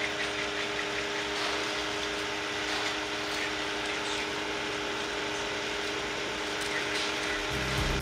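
Concrete pump truck running steadily during a concrete slab pour, a constant hum with a few level tones. Music comes in near the end.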